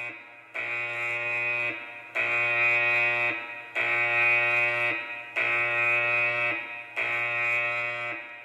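A warship's alarm klaxon sounding a harsh, buzzing blast about every second and a half, five blasts in all, each lasting a little over a second: the call to battle stations under air attack.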